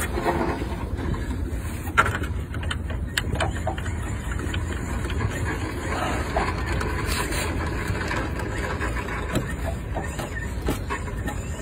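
A steady low rumble with scattered small clicks and knocks of hands working on the model plane's fuselage frame, one sharper knock about two seconds in.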